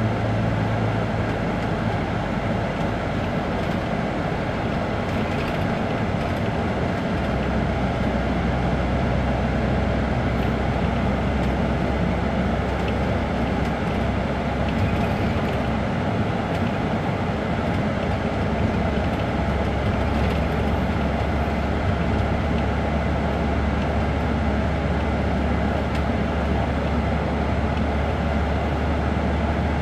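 Isuzu Turquoise midibus's four-cylinder diesel engine idling steadily while the bus stands still. Its low hum steps lower about seven seconds in.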